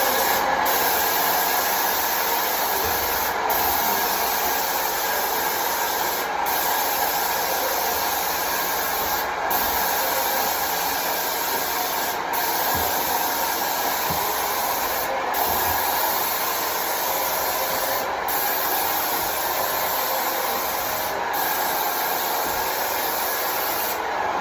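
Graco X5 Magnum airless paint sprayer running steadily after its blown internal fuse was replaced with a soldered-in replaceable one. The steady mechanical noise has a brief dip about every three seconds.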